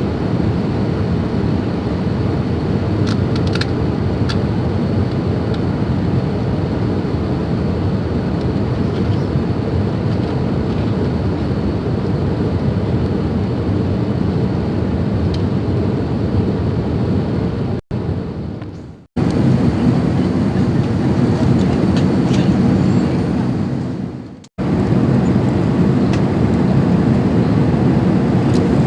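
Steady rumble of engine and airflow noise inside the cabin of an Airbus A380 airliner, cutting out twice for a moment before carrying on unchanged.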